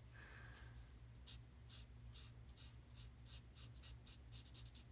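Orange felt-tip marker scratching across paper in short colouring strokes, faint, coming quicker in the second half.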